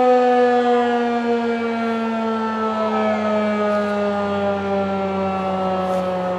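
Federal Signal electromechanical outdoor warning siren during a full-alert test, its single tone sliding slowly and steadily lower in pitch and loudness as it winds down at the end of the alert.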